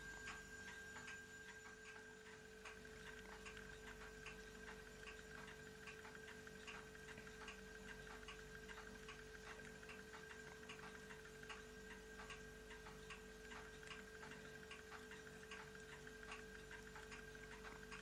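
Faint, regular ticking, about two ticks a second, over a faint steady hum.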